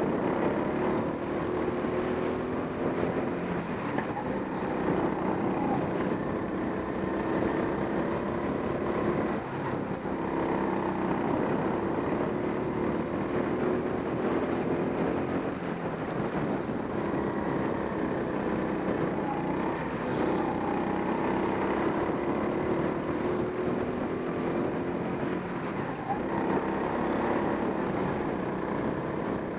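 Racing go-kart's motor running hard round an indoor track, heard from on board the kart, its note rising and falling as the kart brakes for corners and accelerates out of them.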